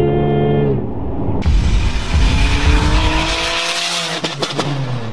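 Supercharged Toyota 1GR-FE V6 running at steady revs, then a sudden rush of tyre and road noise from about a second and a half in, with the engine note falling away near the end.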